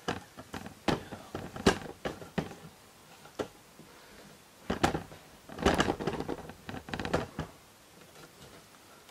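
Irregular clicks, knocks and rattles of a camera tripod being handled and adjusted, with a denser run of knocks about five to seven and a half seconds in.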